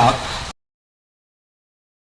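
A man's voice finishing a word, then the sound cuts off abruptly to complete silence about half a second in.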